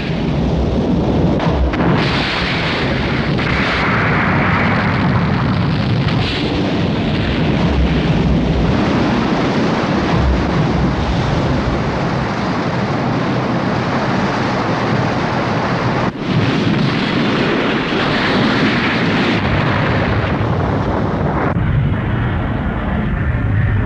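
Tokusatsu explosion sound effect: a long, continuous, loud rumbling and crackling blast, with a short break about two-thirds of the way through.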